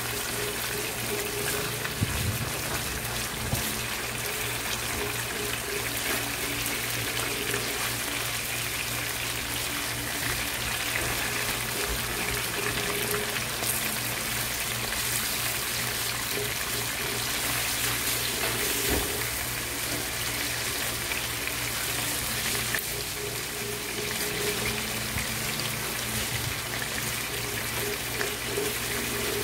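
Chicken pieces sizzling steadily as they fry in butter in a nonstick pan, with a few light clicks of tongs as the pieces are turned over.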